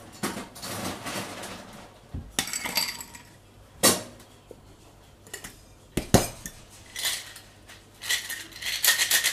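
Clinks and knocks of ice and metal bar tools as a cocktail shaker is loaded and closed, with sharp knocks about four and six seconds in. About a second before the end, the metal shaker starts being shaken hard, ice rattling rapidly inside the tin.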